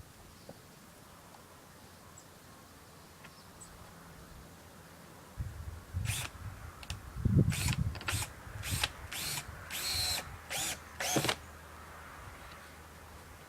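Power drill driving a screw through a window frame into the wall framing, run in about seven short bursts over some six seconds, starting about five seconds in.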